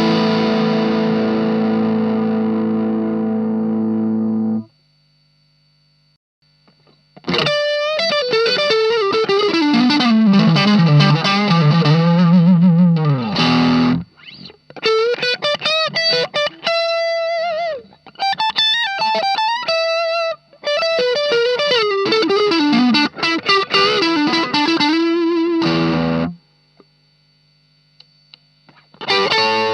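Electric guitar (Fender Stratocaster) played through an Ibanez Tube Screamer Mini overdrive pedal into a Marshall MG15 amp. An overdriven chord rings and is cut off suddenly, then a low amp hum fills a short pause. Single-note lead phrases with string bends and vibrato follow, with brief breaks and another pause with the hum near the end.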